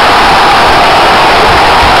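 Football crowd cheering a goal just scored, a loud, steady wall of voices that overloads the microphone.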